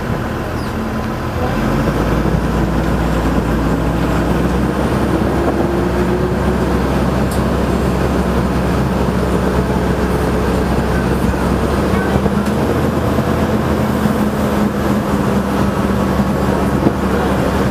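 Engine of a safari tour vehicle running steadily as it drives along, heard from on board; it gets louder about two seconds in.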